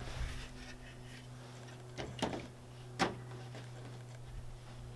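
Two sharp plastic clicks, a little under a second apart near the middle, as a Garmin ECHOMAP 43DV display and its plastic mounting base are pushed and seated onto a RAM mount, with a few lighter ticks of handling around them. A steady low hum sits underneath.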